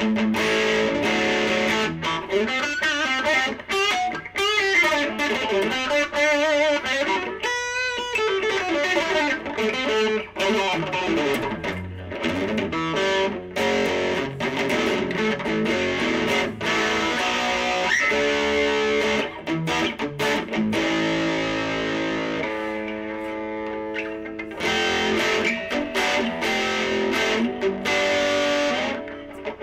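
Epiphone Wilshire P90 Reissue electric guitar played on its bridge P90 pickup through a tube amp. He plays single-note lines and chords, with string bends and vibrato a few seconds in.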